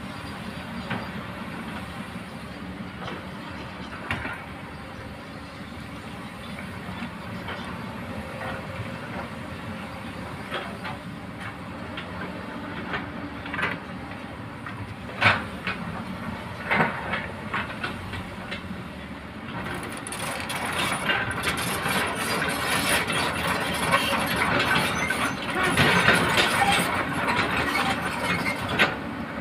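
Hydraulic excavators and dump trucks working: steady diesel engine rumble with sharp metal-and-rock knocks. About two-thirds of the way through, a louder, rough clattering of rock and gravel sets in and stays to the end.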